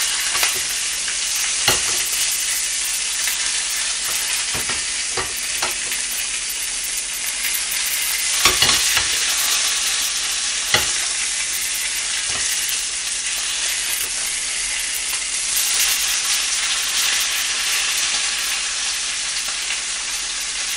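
Mackerel fillet sizzling steadily in oil in a frying pan, with a few sharp knocks scattered through as the pan is moved.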